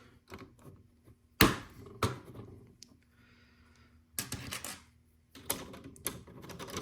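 Small plastic LEGO pieces clicking and knocking as they are handled and pressed into place on the build, with one sharp knock about one and a half seconds in and quicker clusters of clicks later.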